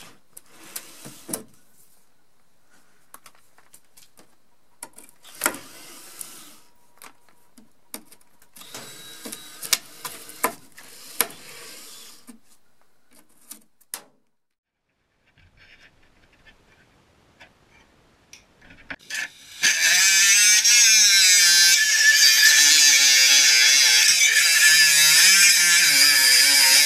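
Power drill boring out rivets in an aluminium panel in three short bursts, with clicks as the bit catches. About twenty seconds in, a much louder angle grinder with a cut-off disc starts cutting through a rusted steel strip, running steadily with its pitch wavering under load.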